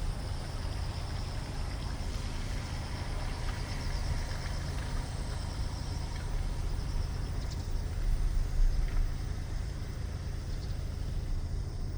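Outdoor ambience: a steady low rumble with insects chirring in a fast pulsing high band throughout.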